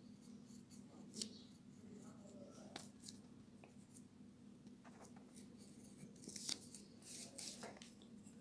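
Scissors snipping through thin paper around a cut-out heart: a few faint, irregularly spaced cuts, the loudest near the end, over a steady low hum.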